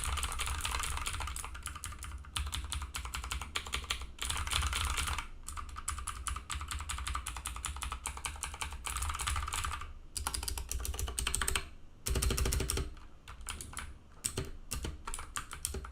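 Rapid typing on a Scorpion/Marvo KG901 mechanical keyboard with clicky blue switches, a dense run of key clicks broken by a few short pauses.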